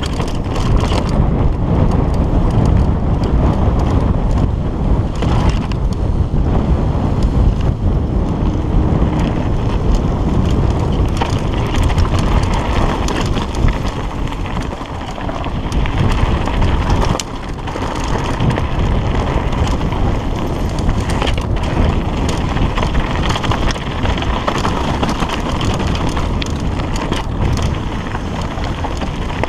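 Mountain bike descending rough singletrack at speed: wind buffeting the camera microphone over the rush of tyres on grass and dirt, with the bike rattling and knocking over bumps throughout.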